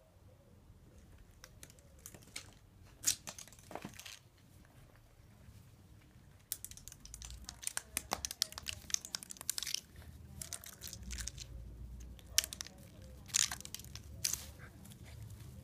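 Border Collie puppy scampering and pouncing on stone patio tiles while playing with a pine cone: irregular clicks and scrapes of claws on the tiles with the pine cone knocking and crackling, busier from about six seconds in.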